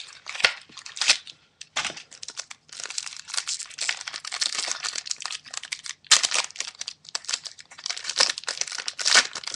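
Trading-card booster pack wrapper crinkling as it is handled and torn open, in irregular crackly bursts.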